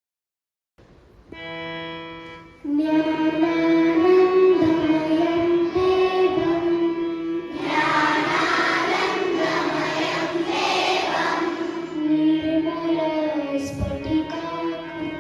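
After about a second of silence, a single instrument note is held, then a group of children starts singing together in chorus about three seconds in, in an Indian devotional style.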